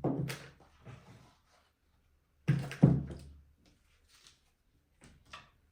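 A few thuds and knocks of things being handled and set down: one near the start, two louder thumps close together about two and a half seconds in, then a few faint clicks.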